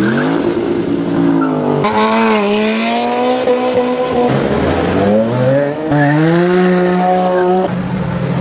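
Supercar engines revving and accelerating hard in a string of short clips. Each rise in pitch is cut off abruptly by the next clip, about every two seconds.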